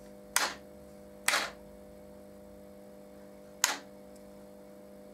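Model railway turnout being thrown back and forth from a control-panel switch: three sharp clacks, two close together near the start and one more past the middle, over a steady electrical hum.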